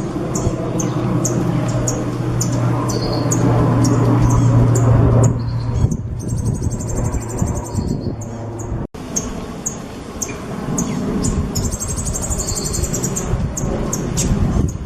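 A songbird singing: a string of short, sharp, high chirps broken by two longer buzzy trills, over a steady low hum and background noise that drop out for an instant about nine seconds in.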